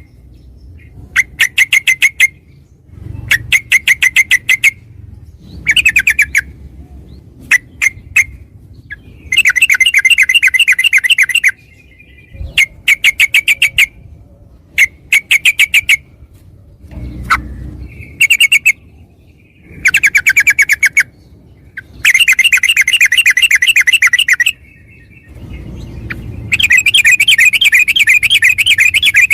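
Yellow-vented bulbul (trucukan) singing in bursts of fast, chattering notes, each phrase one to three seconds long with short pauses between. The longest rapid runs, the 'ropel' bird-keepers prize, come in the middle and near the end.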